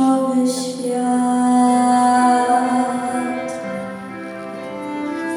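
A girl singing into a microphone over backing music, holding one long note through the first two seconds, after which the accompaniment carries on with little or no voice.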